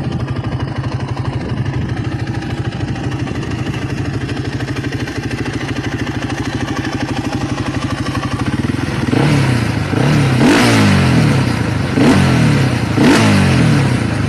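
Dinli 450cc ATV engine idling steadily, then blipped several times from about nine seconds in, its pitch rising and falling with each rev.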